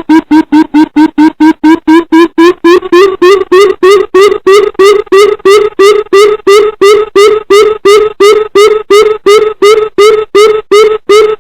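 Coucal calling: a fast, even series of deep hooting notes, about four a second, rising slightly in pitch over the first few seconds and then holding steady. Very loud, with the notes clipped and distorted.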